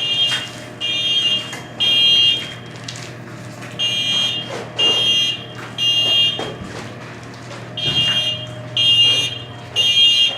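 Building fire alarm sounding in the temporal-three evacuation pattern: three high-pitched beeps, a pause, then three more, repeated three times. The system is in alarm after its manual pull station was pulled.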